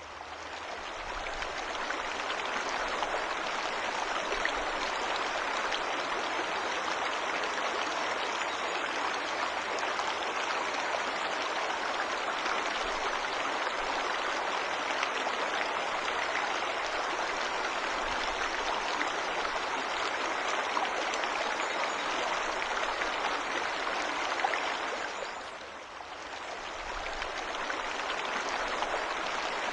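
Steady rushing water of a forest waterfall, a dense even splashing. It fades briefly down and swells back up at the start and again about 26 seconds in.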